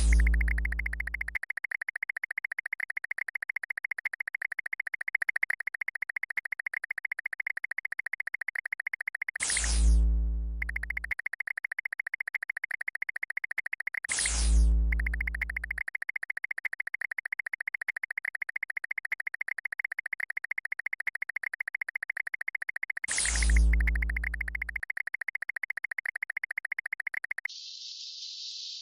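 Synthesized sound effects: a steady, rapidly pulsing electronic buzz, broken four times by a loud falling swoop that ends in a deep boom (at the start, about 10 s in, about 14 s in, and about 23 s in). The buzz cuts off shortly before the end, leaving a hissing noise.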